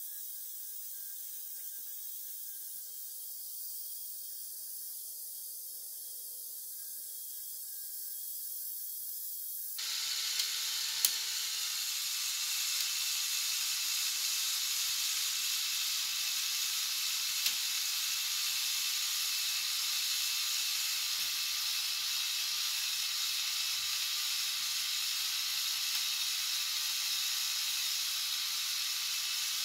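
Modified LEGO Technic 42055 bucket wheel excavator running on its Power Functions XL motor, its plastic gears giving a steady, hiss-like mechanical noise. About ten seconds in it steps abruptly louder, and a couple of sharp clicks follow.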